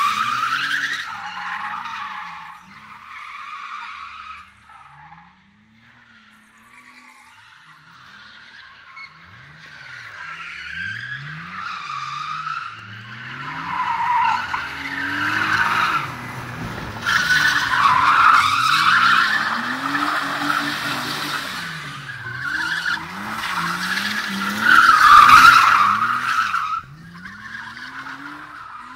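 BMW drift cars sliding on concrete: tyres squealing in long surges while the engines rev up and down again and again. The sound dies down to a distant lull about a quarter of the way in, then builds as two cars slide together, the squeal loudest a little past halfway and again near the end.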